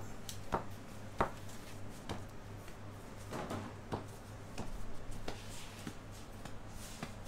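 Faint, irregular soft taps and thuds as a bread stamp is pressed into flattened rounds of dough on a cloth-covered board, over a low steady hum.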